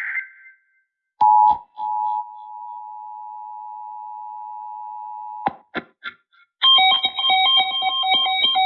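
The last fraction of a second of an EAS SAME data burst, then the EAS two-tone attention signal held steady for about four seconds, cut off with a few clicks. About six and a half seconds in, a pulsing electronic melody of several tones starts.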